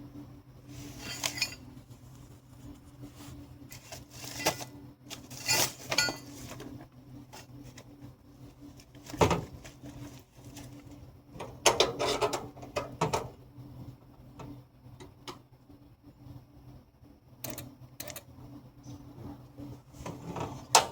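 Wire-feed welder laying short tack welds, each a brief burst of crackle, with sharp metal clinks and knocks in between over a steady low hum.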